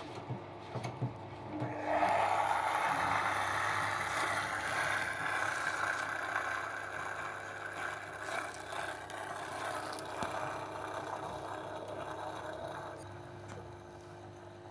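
Water from the washing machine's fill rushing and splashing into its opened detergent dispenser, starting suddenly about two seconds in and easing off near the end. A few light clicks of plastic parts being handled come before it.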